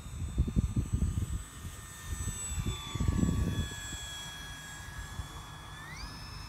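Electric RC airplane's brushless motor and propeller whining steadily as it flies low past. The pitch dips slightly about halfway through, then climbs sharply near the end as the throttle opens. Low rumbling wind gusts on the microphone, loudest about three seconds in.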